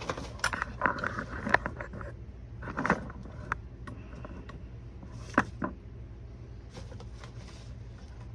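Small hard parts clicking, tapping and scraping together in the hands as a model aircraft's rudder push rod is fitted: a busy run of clicks and rubs over the first few seconds, then one sharp click about five seconds in, over a steady low hum.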